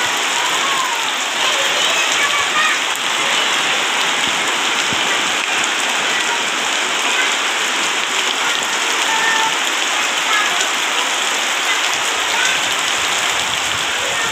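Heavy rain falling steadily on banana leaves and dense tropical vegetation, an even, unbroken hiss.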